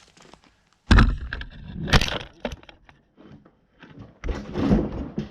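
Pieces of freshly sawn cedar being dropped or thrown onto a pile, clattering wood on wood: a sharp crash about a second in, another about a second later, and a longer rattle near the end.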